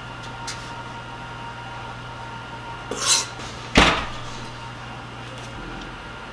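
Kitchen wall-oven door shut with a single sharp bang just before four seconds in, preceded about a second earlier by a short scraping rattle, over a steady faint appliance hum.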